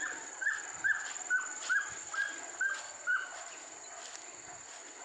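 A hunting dog yelping on a wild boar chase: about eight short, high yelps, each dropping slightly in pitch, a little over two a second, stopping about three seconds in.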